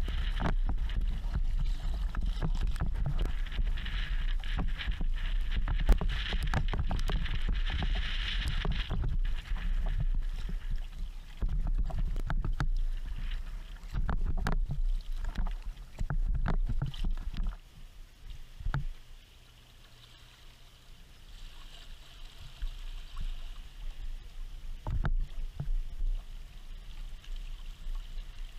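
Water splashing and rushing along the hull of a Kevlar and carbon-fibre sea kayak under way, with irregular splashes. It gets much quieter a little past halfway, leaving faint water noise and an occasional splash.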